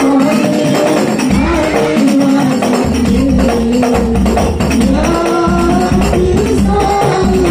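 Hadrah ensemble: rebana frame drums beaten in a quick, steady rhythm under a man's amplified devotional singing, in long held and gliding notes.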